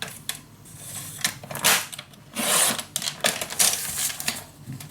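Cardstock being cut to size on a paper trimmer: several short sliding cutting strokes with clicks and paper rustling.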